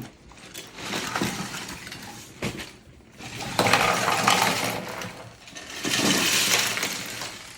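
Loose plastic Lego bricks clattering as a hand rummages through a pile of pieces, the rattling growing louder in two stretches in the second half.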